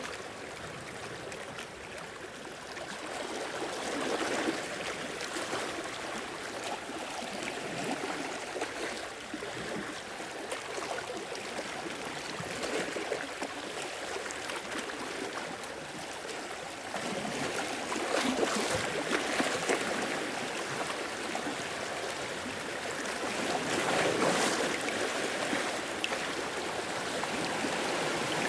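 Sea waves washing in and running back, a continuous rush of water that swells louder every several seconds.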